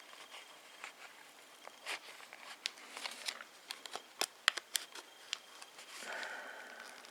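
Small, irregular clicks and crackles of a glued phone LCD screen being pried slowly out of its frame, the adhesive giving way bit by bit, with a brief scraping rasp near the end.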